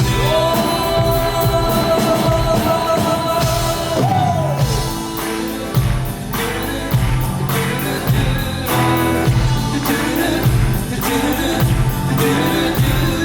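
Live band music with singing: one long held note for about the first four seconds slides down and ends, then the band plays on with a steady beat.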